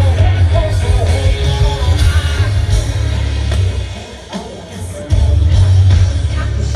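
Live rock band playing through a stadium PA: a male vocalist singing over bass-heavy band backing, then a brief quieter stretch before the full band comes back in loudly about five seconds in.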